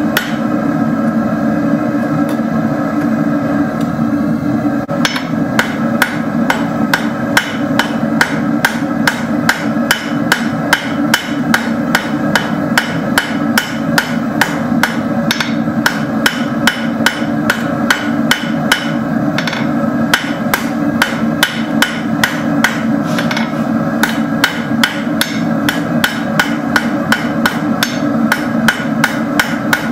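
Blacksmith's hammer striking hot steel rod on an anvil in a steady rhythm, a few ringing blows a second, over a steady low hum.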